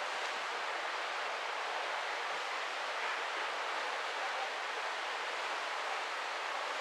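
Steady, even rushing of sea water and wind heard from the deck of a cruise ship under way, with no distinct events.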